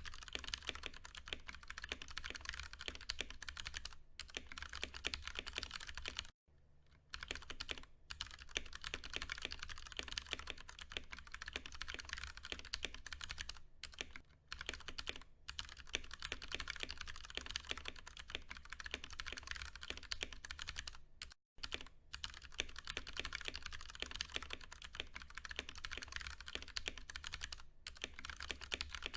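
Fast, continuous typing on a Ducky One 2 Mini mechanical keyboard with tactile, non-clicky Cherry MX Brown switches: a rapid clatter of keystrokes broken by a few brief pauses.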